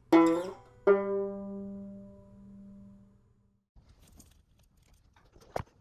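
Two plucked-string notes of a short intro jingle, struck a moment apart and ringing out for about two seconds. Then faint crackling of dry nest material being pulled apart by hand, with one sharp click near the end.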